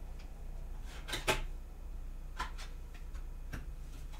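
Tarot cards being drawn from a deck and laid onto a cloth-covered table: a handful of short slides and soft slaps, the loudest about a second in, over a steady low hum.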